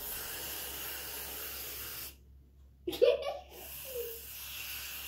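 Aerosol whipped-cream can hissing steadily as cream is sprayed into a bowl. It stops for a moment, restarts with a short loud sputter about three seconds in, and hisses steadily again.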